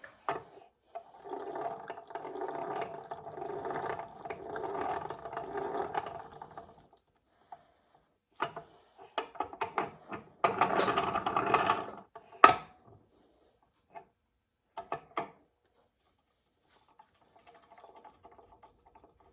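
Hands working the metal parts of a Warner Bearing T9 transmission during reassembly. First comes several seconds of rhythmic rubbing and scraping, then clicks and clinks of metal on metal, with one sharp knock about twelve seconds in.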